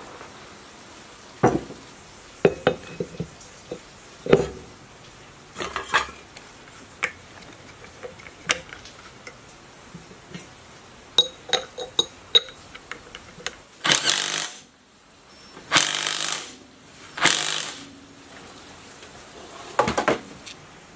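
Metal tools and engine parts clinking and knocking on a worktable as a small air-cooled engine is put back together, with its flywheel fitted onto the crankshaft. Scattered sharp clicks and clanks, a few with a ringing edge, then three longer hissing or rasping sounds about a second apart in the second half.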